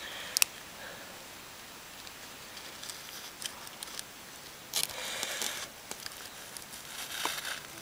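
Hand handling noise as a wire electrode is pushed into iron sand in a ceramic mug: a couple of sharp clicks just under half a second in, then short scraping rustles around the middle and again near the end.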